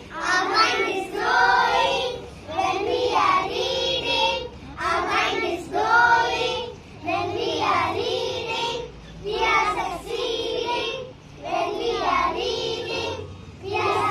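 A child singing a song, phrase after phrase with short breaks between them.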